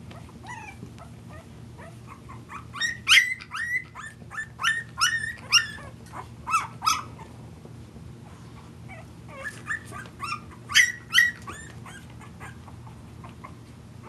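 Young Boston terrier puppies whimpering and squealing in short, high-pitched cries that slide in pitch. They come in two runs of many cries, one starting a few seconds in and another past the middle.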